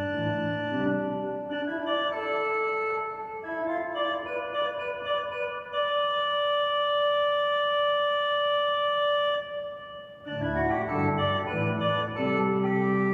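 2010 Holtkamp pipe organ playing sustained chords. The low notes thin out through the middle, leaving a high held chord for several seconds, before a brief dip and full chords with bass return near the end.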